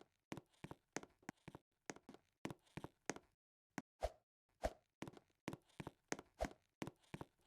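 An irregular series of short, faint knocks and taps, about three or four a second, a few with a duller low thud.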